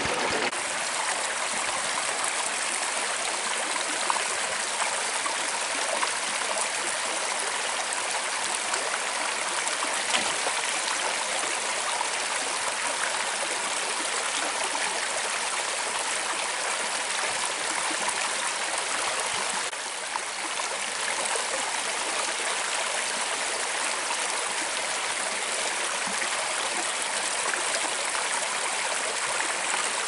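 Shallow rocky brook running over stones and small cascades: a steady rushing, splashing hiss of water, with a brief dip in level about two-thirds through.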